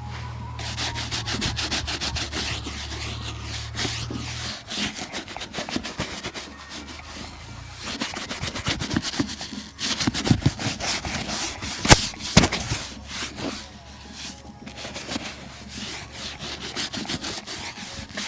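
A shoe's leather being rubbed and brushed in quick, uneven strokes during a shoe shine, with one sharp tap about two-thirds of the way through.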